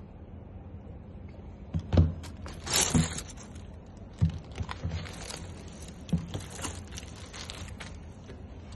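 Packaging being handled: a clear plastic bag and tissue paper crinkling in bursts, with a few soft knocks as things are lifted and set down, the strongest about two and three seconds in.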